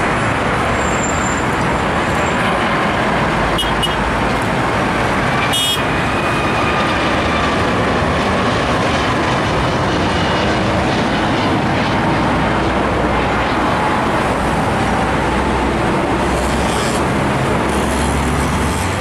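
Jet engines of a Boeing 757 freighter on final approach, passing low overhead: a loud, steady rush with a faint whine falling in pitch as it goes by.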